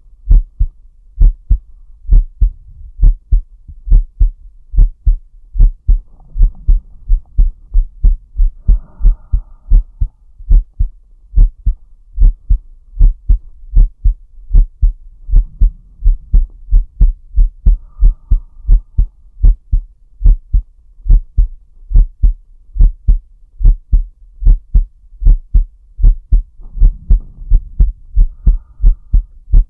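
A man's heartbeat heard close up: a steady run of low, even thumps. Slow, soft breaths swell in about every ten seconds.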